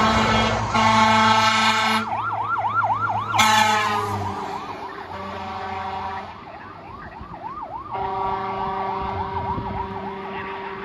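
A 2002 Freightliner/E-One fire tanker running hot past the listener: an electronic siren on a fast yelp, broken by long blasts of its air horn, over the truck's diesel engine. The tones drop in pitch as it goes by about four seconds in, and the siren and horn grow fainter as it heads away.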